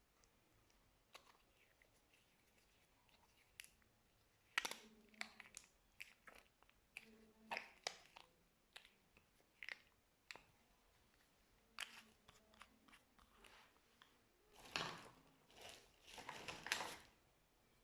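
Slime being squeezed and poked by hand, giving scattered sticky crackles and pops, with a longer run of crackling squishes near the end.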